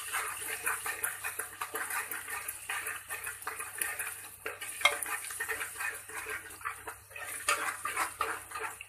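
Metal spoon stirring and scraping in a pan of frying tomato, ginger and chana dal masala, a quick run of scrapes and clinks, with a light sizzle under it.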